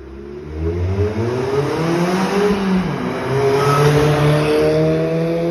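Suzuki Swift Sport ZC32S's 1.6-litre four-cylinder accelerating through a straight-through mid pipe and an aftermarket rear silencer. The exhaust note climbs in pitch, dips briefly about halfway through, then climbs again.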